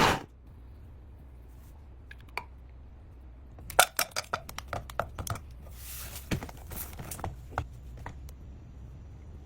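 A loud machine-like noise cuts off at the very start, then a quick run of light clicks, taps and knocks, as of kitchen utensils and containers being handled, from about four to eight seconds in.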